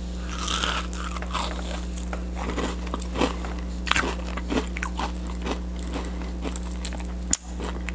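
Close-up crunching and chewing of a crispy breaded onion ring, bitten at the start and then chewed with many irregular crackly crunches. A steady low hum runs underneath, and a single sharp click comes near the end.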